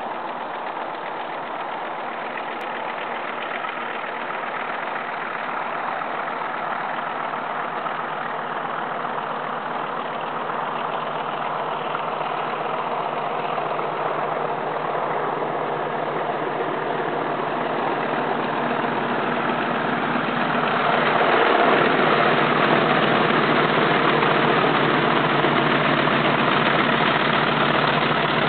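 Class 40 diesel-electric locomotive's English Electric 16-cylinder engine thrashing at full power as it climbs a gradient with a train. It grows steadily louder as it approaches, with a jump in loudness about three-quarters of the way through.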